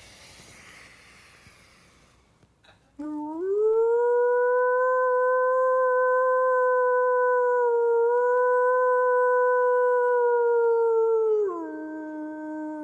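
A man's voice imitating a wolf's howl through cupped hands: a beta-rank or enforcer wolf's locating howl, high in tone. It begins about three seconds in, rises quickly and holds one long steady note for about eight seconds, then drops to a lower, quieter note near the end.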